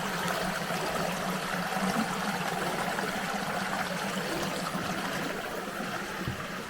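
Stream running: a steady, even rush of flowing water.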